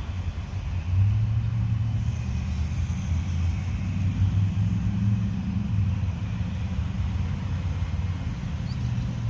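Low rumble of wind buffeting the phone's microphone, swelling and easing in uneven gusts.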